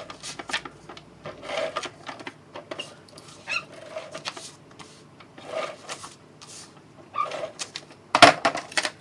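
Handheld tape runner drawn across patterned cardstock in short strokes, with small clicks and paper rustling as the adhesive is laid and the paper is pressed down. A louder crackle of paper comes about eight seconds in, as the banner is lifted.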